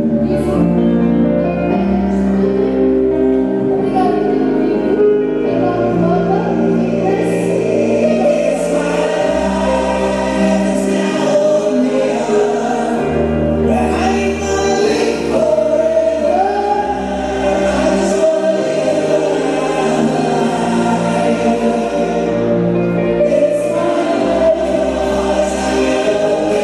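Music with choral singing over sustained bass notes that change every couple of seconds.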